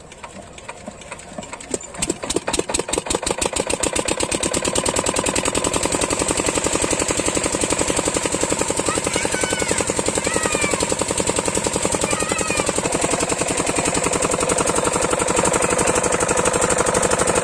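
8 hp single-cylinder diesel engine of a borewell water pump set catching and picking up speed over the first couple of seconds, then running steadily under load with a fast, even knocking beat as the pump delivers water. Water gushes from the outlet pipe throughout.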